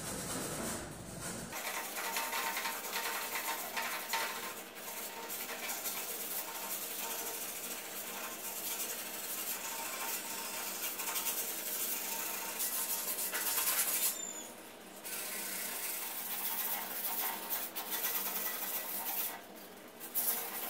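Sandpaper rubbed by hand back and forth over a white-coated, CNC-carved wavy panel, in repeated strokes, stopping briefly twice in the second half.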